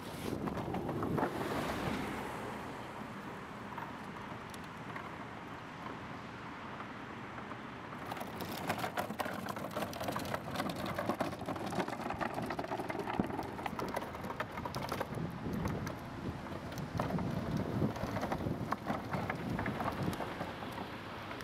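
Hard caster wheels of a foot-pushed wooden cart rolling over rough asphalt: a steady crackling rumble with many scattered clicks and rattles, busier and louder about eight seconds in.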